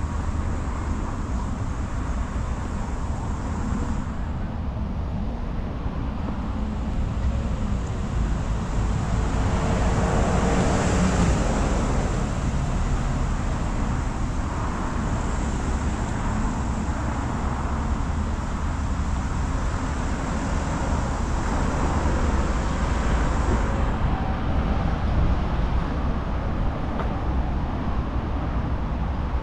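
Steady road traffic noise under a constant low rumble, swelling briefly as a vehicle passes about ten seconds in.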